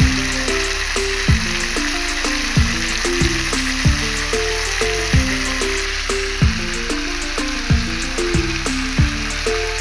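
Chicken pieces with spices sizzling steadily as they fry in a wok, under a background music track: a deep kick drum that drops in pitch about every 1.3 seconds, over a repeating bass line.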